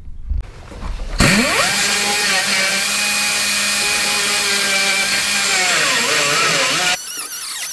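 A die grinder spins up about a second in and runs at a steady high speed, grinding out a hairline crack in the tractor's steel loader frame ahead of welding. Its pitch sags briefly near the end as the bit is loaded, and then the sound turns into a thinner, wavering squeal.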